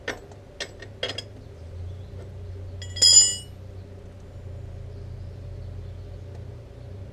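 A few light metallic clicks, then about three seconds in a loud ringing clink of metal on metal, from tools and parts being handled at a motorcycle's rear drum brake.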